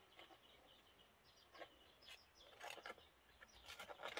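Mostly near silence, with faint scraping and scratching of fingers digging in wet soil and gravel, a few short scratches, more of them near the end.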